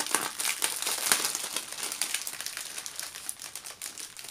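Clear plastic wrapping crinkling and crackling as a bundle of small bags of diamond-painting drills is handled and unwrapped. The crackles are densest in the first two seconds and thin out toward the end.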